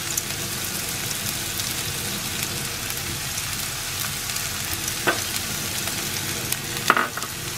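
Chopped onion and spring onion sautéing in hot oil in a nonstick frying pan, a steady sizzle with the scrape of a wooden spatula stirring. A couple of sharp knocks, about five and seven seconds in.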